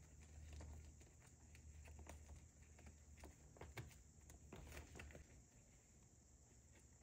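Near silence with faint scattered clicks and rustles, mostly in the first five seconds: zipper cash envelopes being slid and spaced out along a binder's rings.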